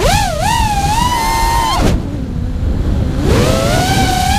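FPV quadcopter's motors and propellers whining, the pitch rising and falling with the throttle. A little under two seconds in the throttle is cut and the whine drops away, then climbs back up near the end, over a low rumble.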